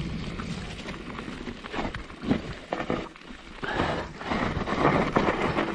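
Mountain bike rattling over wet roots and mud: irregular knocks and clatters from the wheels and frame, with rushing tyre noise growing louder about three and a half seconds in.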